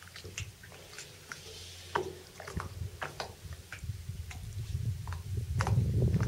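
African elephant tearing up grass with its trunk and chewing it: a run of crisp snaps and crunches, growing busier after about two seconds, with a low rumble swelling near the end.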